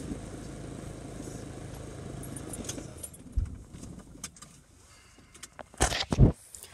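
Iveco Daily 2.3 HPI diesel engine idling steadily, then dying about three seconds in: the engine cutting out. A low thump follows, then clicks and knocks, with a couple of louder rattles near the end.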